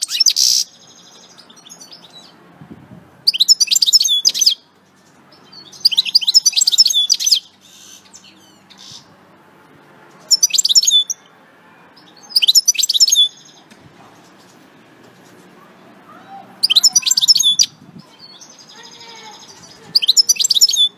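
European goldfinch singing in short bursts of fast, twittering song, about seven phrases of a second or so each, with quieter twittering between them.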